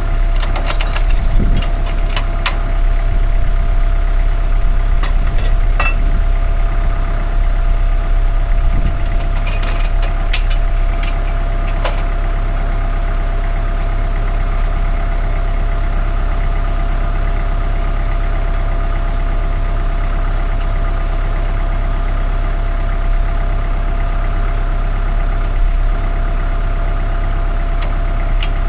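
An engine idling steadily with a constant hum. Over roughly the first twelve seconds there are scattered sharp knocks and clanks as the next log is loaded onto the sawmill; after that the engine runs on alone.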